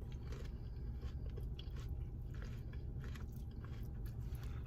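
A person chewing a mouthful of food close to the microphone, with irregular small wet clicks and crunches, over a steady low hum.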